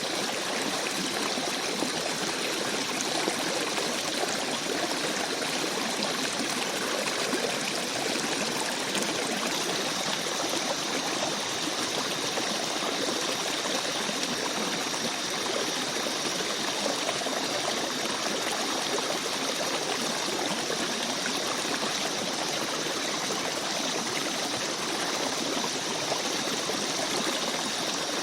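A small forest stream babbling and trickling steadily over rocks.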